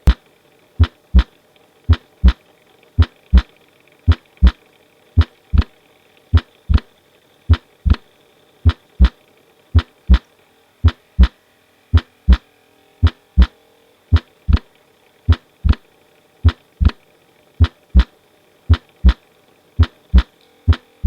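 Recorded heart sounds: a steady lub-dub, pairs of low thuds repeating about once a second. It is a teaching example of a loud second heart sound (loud P2), a sign of pulmonary hypertension.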